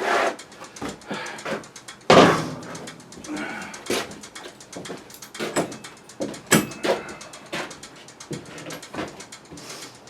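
Hands working on small-engine parts: a run of metal clicks and clinks, with a louder scraping clunk about two seconds in.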